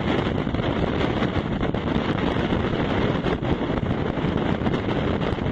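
Strong storm wind buffeting the microphone on a sailing yacht's deck, a steady loud rush of wind and sea.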